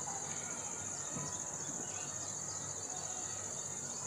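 Crickets chirring: a steady, high-pitched trill that runs on unchanged.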